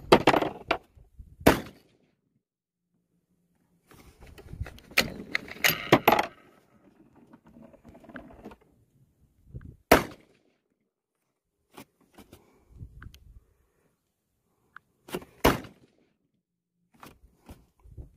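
Scattered metallic clicks, clinks and knocks of a rifle and gear being handled at the shooting bench, with a cluster of clatter about five seconds in and the sharpest knock about ten seconds in.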